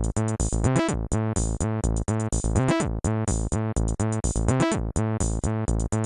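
Polyphonic MIDI ringtone playing on a Nokia 5140 phone. It is a synthesized tune over a steady drum-machine beat, with a rising pitch sweep about every two seconds.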